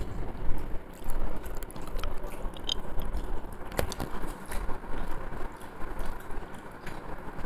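Onions, green chillies and ground spices frying in hot oil in a kadai, sizzling and crackling while a spatula scrapes and stirs them against the pan; one sharper knock a little past halfway.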